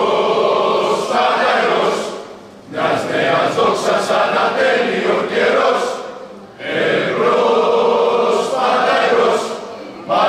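A group of men and women singing together, choir-like, in three long phrases with short breaks between them.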